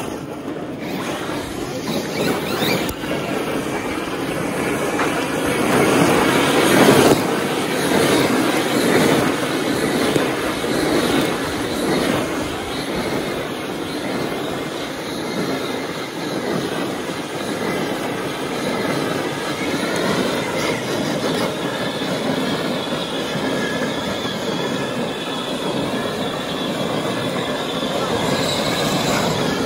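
Electric RC monster trucks running hard on loose dirt: motors whining, rising and falling with the throttle, over a steady noise of tyres churning the ground.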